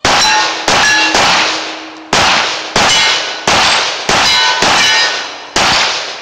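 A string of about nine gunshots at an irregular pace, fired at steel plate targets; the steel rings out with a clang after the hits.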